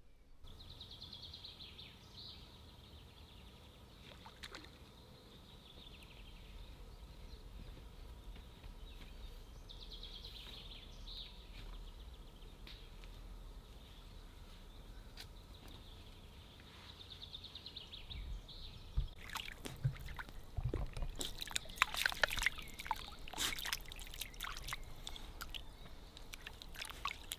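Faint birdsong over quiet lakeside ambience. About two-thirds of the way through comes a busy run of clicks, knocks and water splashing, the sounds of a small fish being brought in and handled.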